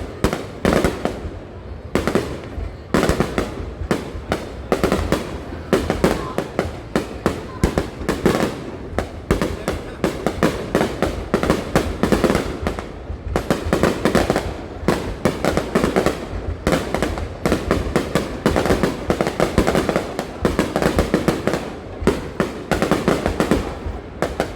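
Fireworks going off in a dense, continuous barrage of sharp bangs and crackles, several a second.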